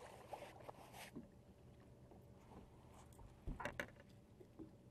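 Mostly quiet, with faint handling noises from an angler kneeling on a bass boat deck: a brief rustle at the start, then a soft thump and a few clicks about three and a half seconds in as he shifts and handles his jerkbait.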